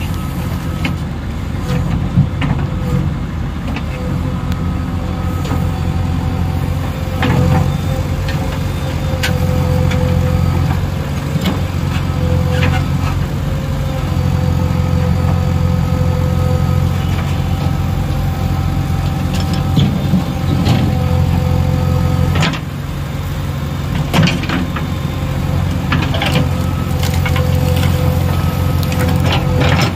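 JCB 3DX backhoe loader's diesel engine running steadily under work as the backhoe arm digs and swings, with a whine that comes and goes over the engine drone. A few sharp metallic clanks from the bucket and arm, and a brief easing of the engine about two-thirds of the way through.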